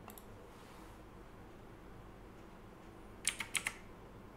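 Computer keyboard keys clicking: one faint click at the start, then a quick run of four or five clicks about three seconds in, over quiet room tone.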